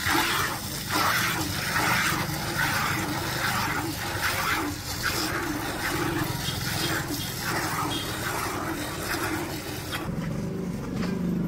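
A cow being milked into a pail: rhythmic squirts of milk, a little more than one a second, that stop about ten seconds in.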